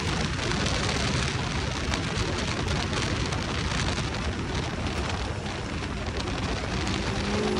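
Unlimited Class Ultra4 race car driving at high speed over desert dirt, heard from inside the cockpit: a dense, steady rush of wind and tyre noise with many small clicks and rattles through it.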